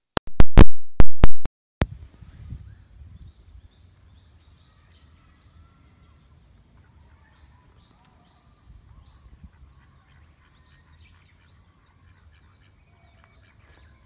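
A few very loud, sharp clicks in the first second and a half, then a low rumble of wind on the microphone with faint, repeated chirping birdsong in the background.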